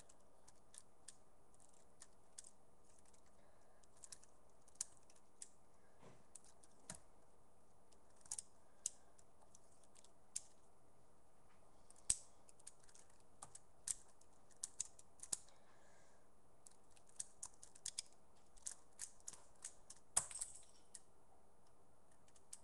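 Lego-brick balisong being flipped and handled: scattered, irregular light plastic clicks and clacks from the Lego pieces, more frequent in the second half.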